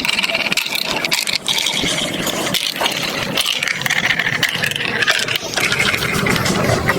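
Marbles rolling and clattering down plastic marble-run blocks, a steady rattle made of constant small clicks.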